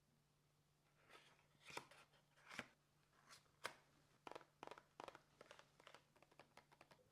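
Faint, close-up rustling and clicking as lipgloss packaging is handled and opened: a few rustles, then quick small clicks through the second half.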